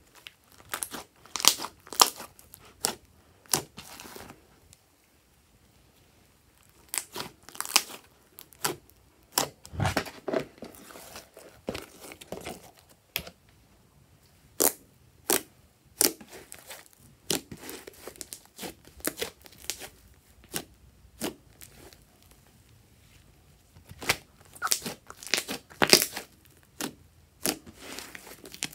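Fluffy slime being stretched, pulled and pressed by hand, giving sharp sticky pops and crackles as trapped air bursts. The pops come in irregular clusters, with a couple of short quiet pauses.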